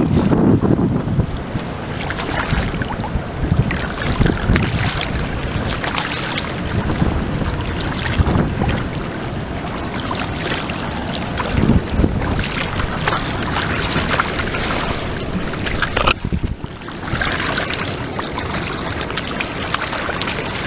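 Wind buffeting the microphone over rushing river water, with irregular splashes from a hooked smallmouth bass being played in at the water's edge.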